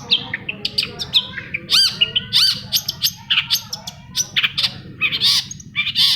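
Long-tailed shrike singing a fast, varied run of short chirps, arched whistled notes and harsh squawky notes.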